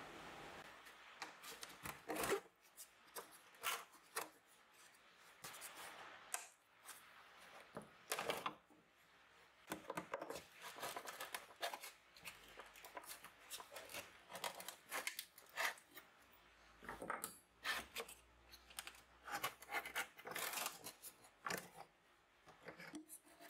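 Old wooden partition boards inside a wooden suitcase being pried loose with a flat bar: irregular scraping, cracking and knocking of dry wood.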